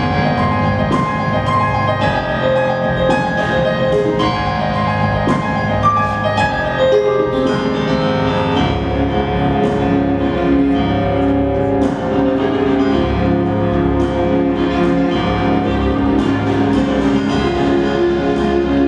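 Instrumental music: struck, ringing notes over sustained tones and a steady low pulse.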